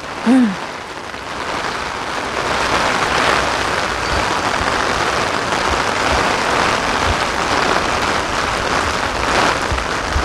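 Heavy rain pouring steadily onto pavement and drumming on an umbrella overhead, with gusts of strong wind buffeting the microphone. A brief voice sound comes just after the start.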